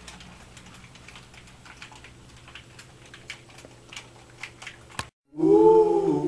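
Quiet, irregular clicking of game-controller buttons over a low steady hum. After a sudden cut to silence about five seconds in, a loud wavering tone with several overtones begins, rising and falling in pitch.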